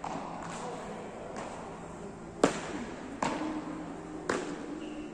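Beach tennis paddles striking the ball during a rally, a sharp pock at each stroke. The first few hits are faint, the loudest comes about two and a half seconds in, and two more follow about a second apart.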